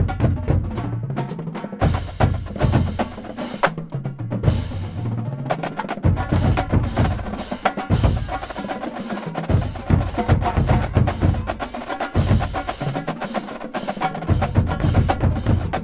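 Marching drumline playing: rapid snare and quad-tom stick patterns over a line of tunnel bass drums whose low notes step up and down in pitch from drum to drum.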